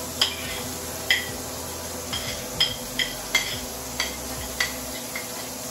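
Metal fork clinking and scraping against a plate as sautéed vegetables are pushed off it into a skillet: about ten sharp, ringing clinks at uneven intervals over a steady hum.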